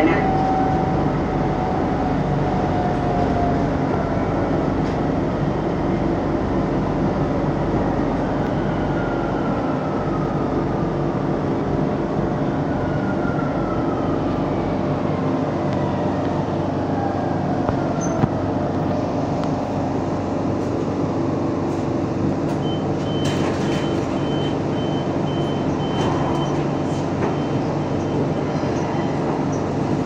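A metro train running, heard from inside: a steady rumble and hum, with electric motor whines falling in pitch through the first half as the train slows. Near the end comes a high, rapid beeping lasting several seconds.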